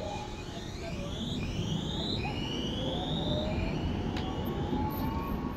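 RET Alstom Citadis tram pulling away from a stop, its traction motors whining in several tones that rise steadily in pitch as it gathers speed, over a low rumble. A single sharp click about four seconds in.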